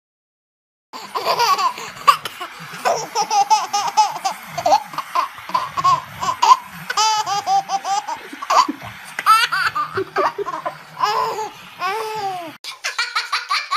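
A baby laughing hard in quick repeated bursts of giggles and belly laughs, starting about a second in. Near the end a different, higher-pitched laugh takes over.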